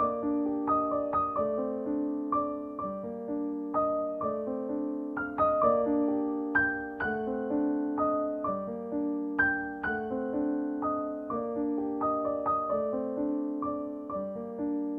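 Background piano music: a gentle, even run of struck notes that ring and fade, chords and melody together.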